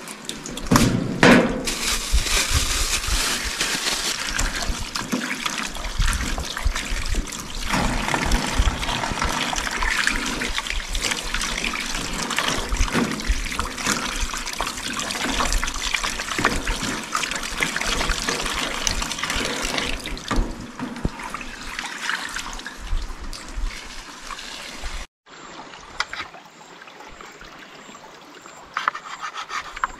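Running water splashing steadily; it cuts off abruptly near the end, leaving a fainter hiss.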